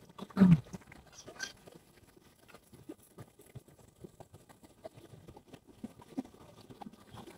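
Footsteps on a path, irregular small taps, with one louder thump about half a second in.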